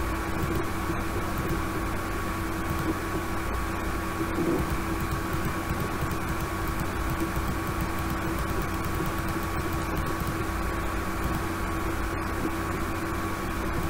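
Steady background hiss with a constant low hum and a thin unchanging whine above it; nothing starts, stops or changes.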